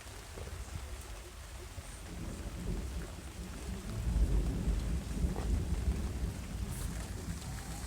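Rolling thunder from a summer thunderstorm, a deep rumble that builds about two seconds in and is loudest around four to six seconds in, over steady falling rain.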